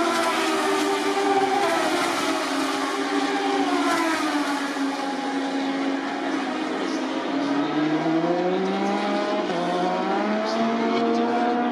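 Moto2 racing motorcycles with Triumph 765 cc three-cylinder engines running hard on the circuit. Several engine notes overlap, with the pitch sliding down about four seconds in and then climbing again from about seven seconds.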